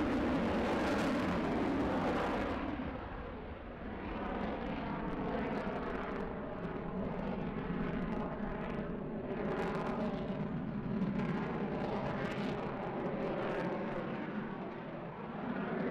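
Jet aircraft engine noise, swelling and easing in waves every couple of seconds.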